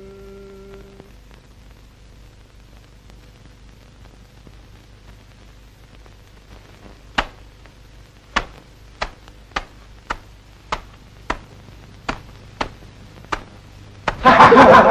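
A regular series of about a dozen sharp cracks, roughly two a second, as boots stamp on and crush bird eggs spread on a mat. Loud laughter breaks in near the end.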